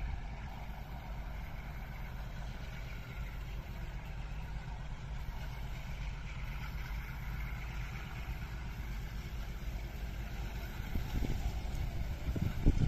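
Wind buffeting the microphone over a steady low outdoor rumble, with a few harder gusts near the end.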